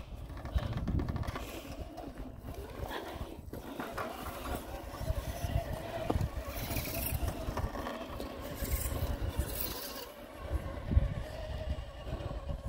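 Scale RC crawler (Axial SCX10 II) with its electric motor and geartrain whining steadily as it crawls over loose rocks. The tyres crunch and scrape on the stones.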